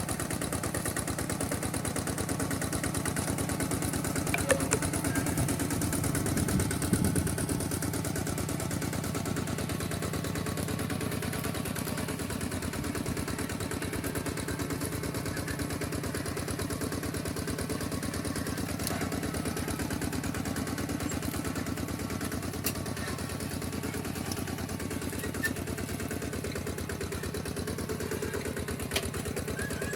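Engine of a two-wheel walking tractor running steadily, with a few clattering knocks, mostly about four to seven seconds in.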